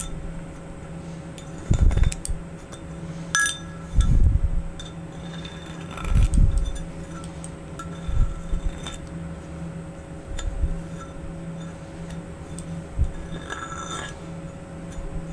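A thin machined metal plate being handled, with scattered dull knocks and light metallic clinks. A steady low hum runs underneath.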